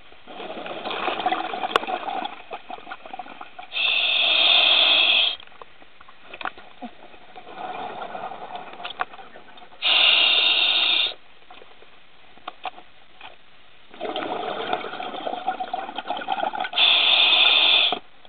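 A scuba diver breathing underwater through an open-circuit regulator, three breaths in a slow steady rhythm. Each breath is a crackling, bubbling rush of exhaled air lasting two to three seconds, then a steady hiss of inhalation through the regulator lasting about a second and a half.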